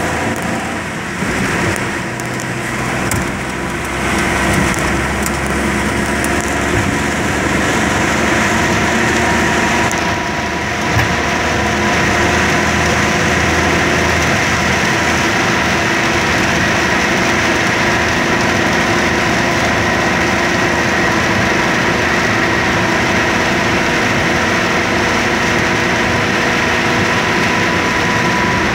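A steady mechanical hum, like an engine idling, carrying several steady tones. It wavers a little over the first ten seconds, has a brief knock about eleven seconds in, then holds even.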